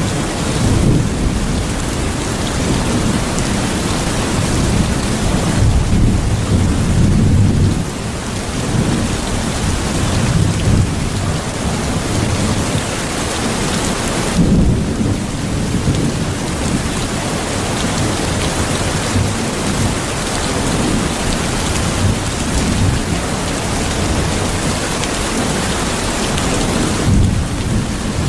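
Steady heavy rain with low rolling thunder rumbling underneath, the rumble swelling louder about six seconds in.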